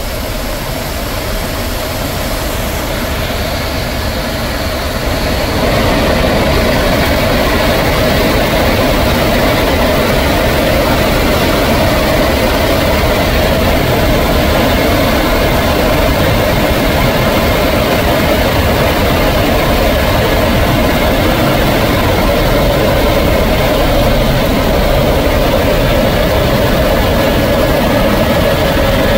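Cabin noise of an Airbus Helicopters H125 in flight: its single turbine engine and rotor running steadily, growing louder about five seconds in.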